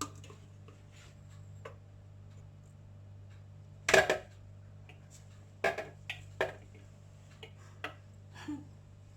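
Dishes and cooking utensils clinking and knocking as steamed momos are lifted out of the steamer to serve: a handful of sharp knocks, the loudest about four seconds in and a quick cluster a couple of seconds later, over a steady low hum.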